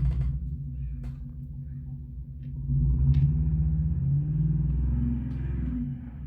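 A motor vehicle's engine running with a low rumble, growing louder about three seconds in, with a few light clicks.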